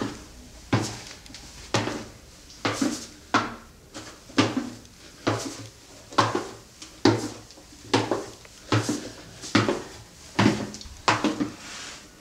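Footsteps on the wooden treads of a spiral staircase, a steady run of knocks about one every half second to second, descending.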